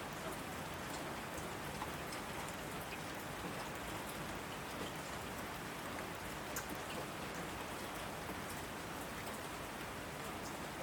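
Heavy rain falling steadily on asphalt, with scattered sharp splats of single drops landing close by.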